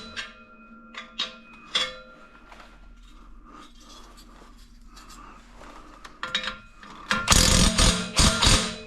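Hand tools working an exhaust clamp tight: a few sharp metal clicks, then about seven seconds in a loud burst of ratcheting as the clamp is cinched down.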